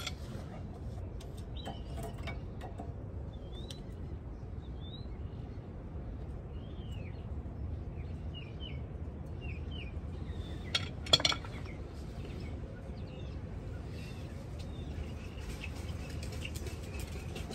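Small birds chirping in short calls over a steady low background rumble; about eleven seconds in, a tool clinks sharply against metal at the wheel hub, ringing briefly, with a few lighter clicks around it.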